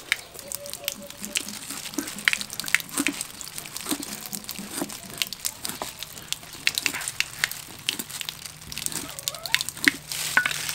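A cleaver scraping scales off a large fish on a wooden chopping board: a run of short, irregular rasping scrapes and clicks, with water trickling in the background.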